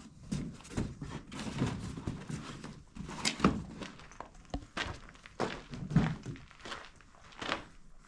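Shoes knocking and scuffing as they are pulled out and tossed about in cardboard boxes: a string of irregular thuds over a low rustling.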